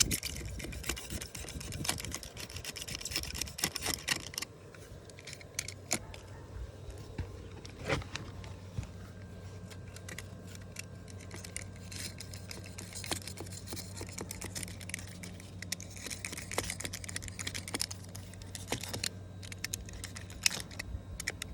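Razor blade slicing through rubbery, partly cured fiberglass mat and resin as the excess is trimmed off: irregular crackling and ticking clicks. A steady low hum joins in about nine seconds in.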